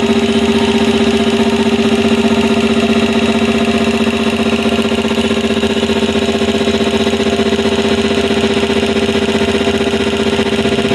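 Elgi 5 hp air compressor running steadily: its twin-cylinder piston pump and electric motor make a loud, even hum with a fast chugging pulse as it pumps the tank back up after cutting back in.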